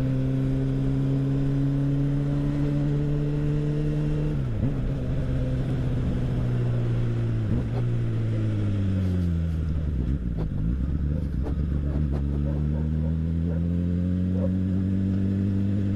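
Honda Hornet inline-four motorcycle engine through a CS Racing aftermarket exhaust, heard from the rider's seat. The engine note holds steady, drops sharply about four seconds in, then falls steadily as the bike slows on the throttle with a few short pops, and rises again near the end as it accelerates.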